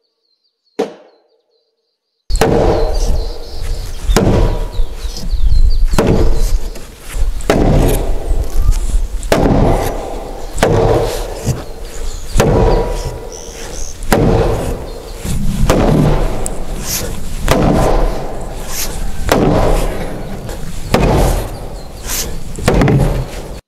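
A mallet pounding on the timber beams of a hanok frame, driving the joinery home. Heavy strikes come about every one and a half seconds, starting about two seconds in, each with a short woody ring.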